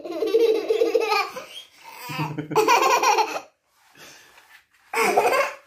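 A young girl laughing in several bouts, with a short quiet gap before the last one.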